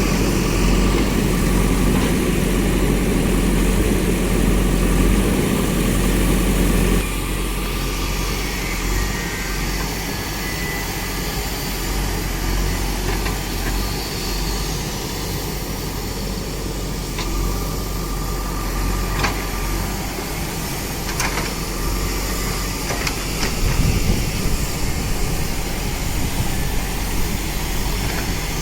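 Backhoe loader's diesel engine running, louder with a steady low hum for about the first seven seconds, then dropping abruptly to quieter steady running, with a few sharp knocks later on.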